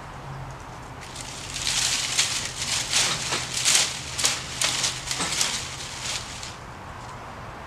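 Dry branches and dead leaves crackling and rustling as they are pressed down into a yard cart: a dense run of snaps starting about a second and a half in and dying away near the end.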